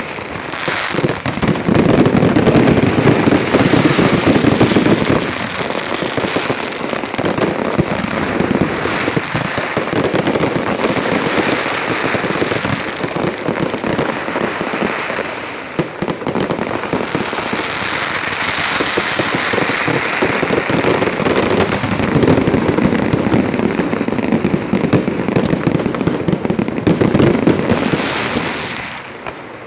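Fireworks display: a dense, continuous barrage of bangs and crackling. It is heaviest from about two to five seconds in and again from about twenty-two seconds, and eases off near the end.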